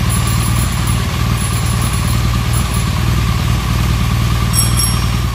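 A motor engine idling with a steady low rumble. A short, high, bell-like ding rings out near the end.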